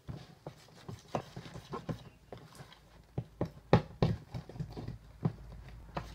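A spoon stirring glue and baking soda for slime in a plastic tub, knocking and clicking irregularly against the tub's sides and bottom, a few times a second.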